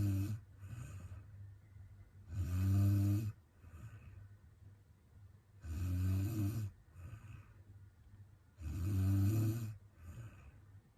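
A young woman snoring in her sleep, a regular rasping snore about every three seconds, each about a second long, with a fainter breath between snores.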